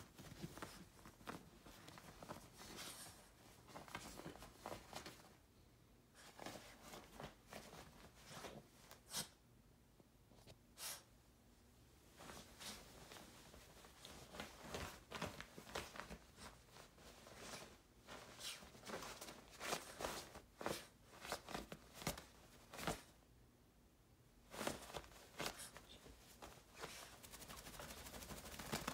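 Faint, irregular rustling and scuffling of bedding as a freshly bathed Havanese puppy rubs and burrows in the blankets to dry itself.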